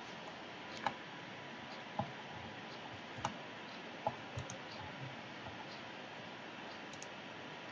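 Computer mouse clicking: several short single clicks, roughly a second apart, over a faint steady hiss.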